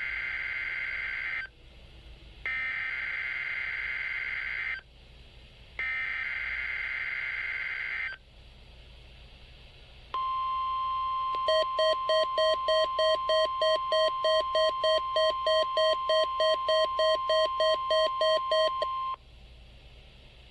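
NOAA Weather Radio SAME header data tones, received on a Midland WR100 weather radio: three warbling, buzzy digital bursts, each about two seconds long with short gaps between. About ten seconds in, the steady 1050 Hz warning alarm tone sounds. A second later the radio's own alert beep starts pulsing over it, about three beeps a second, until both cut off sharply near the end: the radio has been triggered by the required weekly test.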